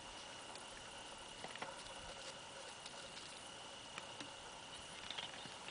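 Faint scattered clicks and light patter of a young red fox foraging on dry grass and gravel.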